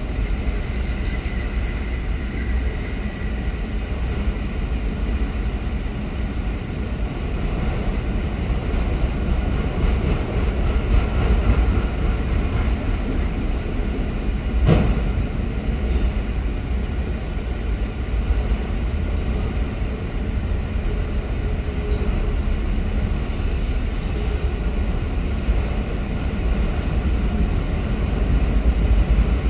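A freight train of autorack cars rolling past, a steady rumble and rattle of steel wheels on the rails. One sharp knock stands out about halfway through.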